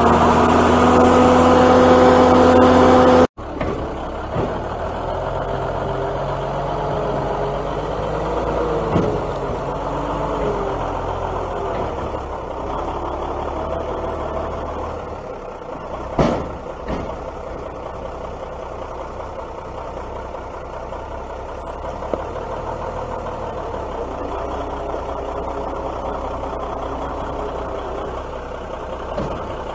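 Diesel engine of an M816 6x6 military wrecker truck running, its pitch rising over the first three seconds. After an abrupt cut it runs lower and steadier, with a sharp clunk about sixteen seconds in and a lighter one around nine seconds.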